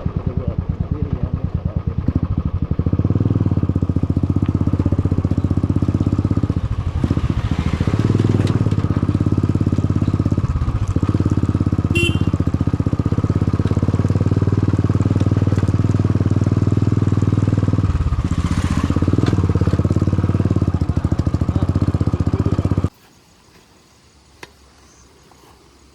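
Motorcycle running loud through its exhaust silencer while riding, recorded close by the bike's own action camera, steady with small changes in engine speed. Near the end it cuts off suddenly to a faint background.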